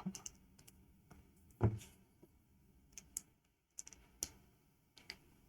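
LEGO plastic bricks clicking as they are handled: a scattering of short, sharp clicks, with one duller knock about a second and a half in.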